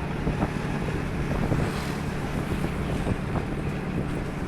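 Motorcycle engine running steadily while riding at speed, with wind rushing over the microphone.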